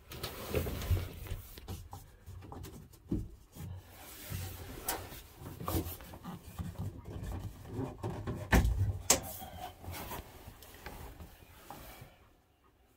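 Handling noise in a cramped wooden boat cabin: irregular rubbing and scuffing with scattered knocks against wooden fittings, and a couple of louder knocks about nine seconds in.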